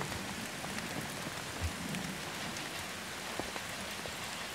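Steady rain falling, an even hiss with a few faint drops ticking.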